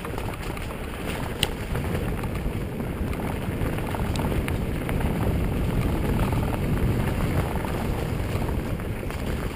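Mountain bike rolling fast along a dirt forest trail: a steady rumble of tyres on the ground, with the bike rattling over the bumps and a couple of sharper clicks. It grows a little louder in the middle.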